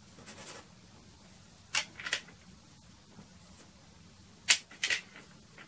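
Soft pastel sticks scratching across black pastel paper in short strokes: a light stroke at first, a sharp pair about two seconds in, and a louder, sharper pair near the end, the first of them the loudest.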